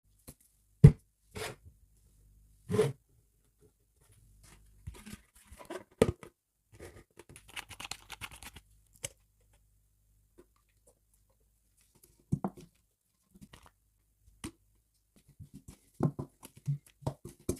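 Packaging being torn open and rustled, with several sharp knocks and clicks from handling. The loudest knock comes a little under a second in, and a stretch of dry rustling falls about halfway through.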